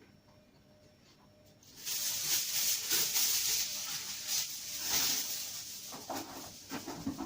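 Cooking-oil spray hissing as it is sprayed to grease a tray so the chicken won't stick. It starts about two seconds in and runs on with uneven pulses.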